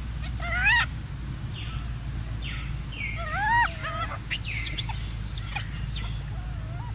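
Young rhesus macaque giving short, high, squeaky calls that rise and fall in pitch: a loud one about half a second in, another about three seconds in, and fainter ones near the end, over a low steady hum and scattered clicks.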